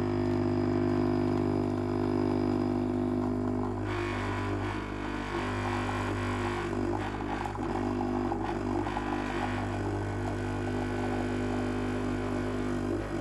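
Silvercrest SEM 1100 C3 espresso machine's pump humming steadily while it pulls a double espresso. About four seconds in, a hiss joins the hum and carries on to the end.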